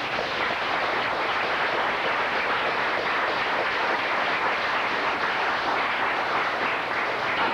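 Audience applauding steadily after a board break.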